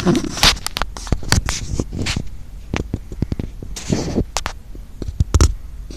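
Irregular sharp clicks, cracks and knocks, with a short rustling noise about half a second in and another about four seconds in.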